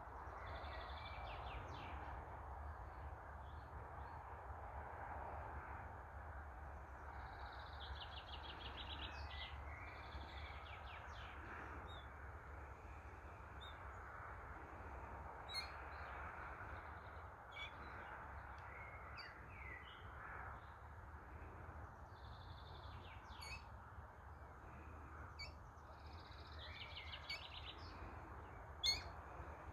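Wild birds calling: short, high, rapid trills repeated every few seconds over a steady outdoor hiss, with a few sharp ticks in the second half.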